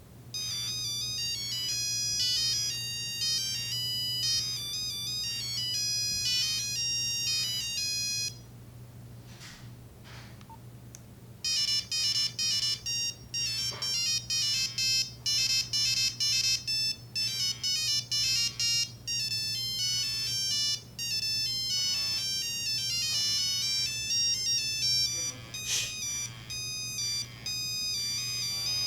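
Nokia 3395 mobile phone playing monophonic ringtones through its small built-in speaker: a beeping melody of stepped notes for about eight seconds, then after a pause of about three seconds, a faster melody of short notes.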